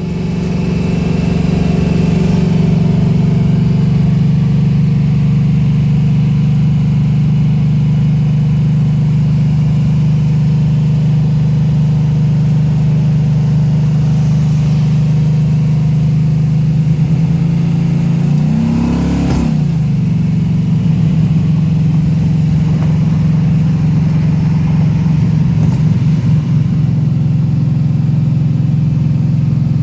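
Plymouth Duster's big-block V8 idling steadily, with one quick blip of the throttle a little over halfway through that rises and falls back to idle.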